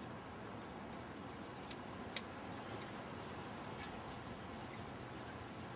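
Low background with a few faint, short high chirps, and one sharp click about two seconds in.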